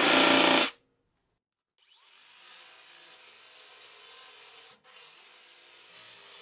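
A DeWalt 20V cordless 3-inch cutoff tool converted into a mini belt sander runs loud and unloaded for under a second, then stops. Later its narrow sanding belt rubs steadily on rusty sheet steel, a quieter rasping that breaks off briefly about five seconds in and starts again.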